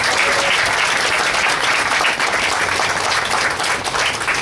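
Audience applauding steadily as the keynote speaker is introduced.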